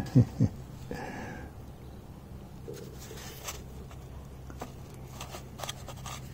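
Quiet room tone with a steady low hum and a few faint, scattered clicks and light handling taps.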